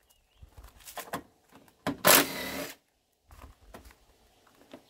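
A cordless power tool runs in one short burst of under a second, about two seconds in, after a few light clicks of tool handling; the bolts it works on are the 10 mm bolts holding the cooling-fan brackets and hood latch of a Chevrolet HHR.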